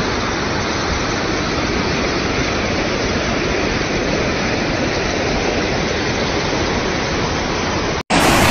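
Muddy floodwater rushing in a torrent down a street: a steady, even rush of water, which cuts off briefly near the end.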